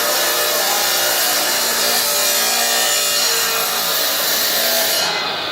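Nilfisk VHW211 industrial vacuum cleaner running with a steady, loud hiss of rushing air; the highest part of the hiss drops away about five seconds in.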